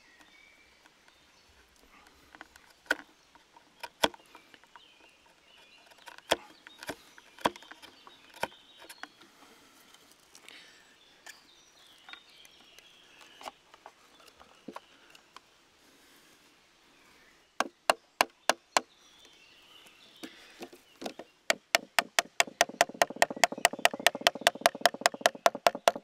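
Wooden boards being knocked with a piece of wood: first scattered single knocks and knife-on-wood clicks, then a short run of five knocks, and near the end a fast, even tapping of about eight knocks a second as the slats are fitted together into a star.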